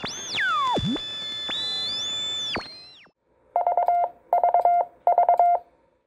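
Electronic intro sound effect: sliding and held synthesized tones, one sweeping steeply down, fading out about three seconds in. Then three evenly spaced short beeps of a single mid pitch.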